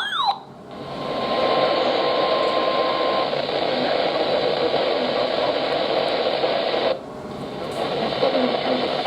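Radio static: a steady hiss from a weather radio receiver with no voice on the channel, and a faint steady tone under it for the first few seconds. The tail of a sweeping alert tone cuts off right at the start, and the hiss drops out briefly about seven seconds in before returning.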